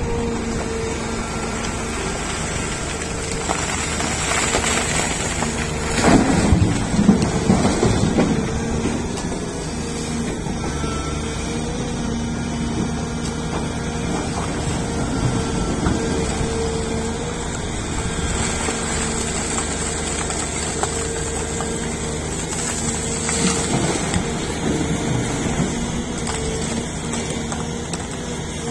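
Volvo EC480DL crawler excavator running under load, its diesel engine and hydraulics giving a steady droning hum. About six to eight seconds in, its steel bucket scrapes and grinds through broken rock and coal with a rough clatter, and a shorter clatter comes about twenty-three seconds in.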